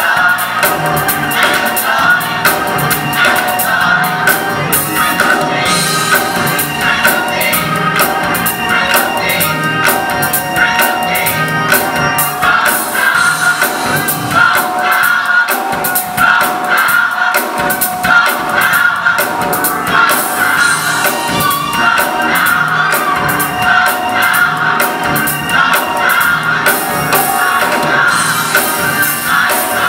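Gospel choir singing a praise song in full voice, over accompaniment with a steady percussion beat.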